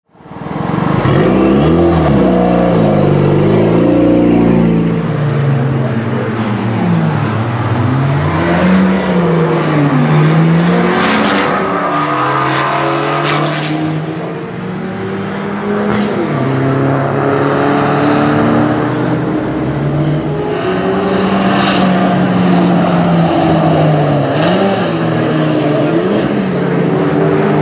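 Turbocharged 1999 Mazda Miata four-cylinder engine of the Exocet Off-Road revving hard on a race track, its pitch climbing and dropping every couple of seconds as it accelerates, shifts and lifts for corners.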